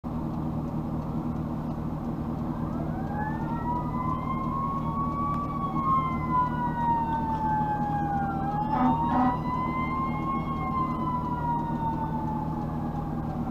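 A fire truck's wailing siren, with two tones slowly rising and falling out of step with each other. Two short horn blasts come about nine seconds in. A steady low engine hum runs underneath.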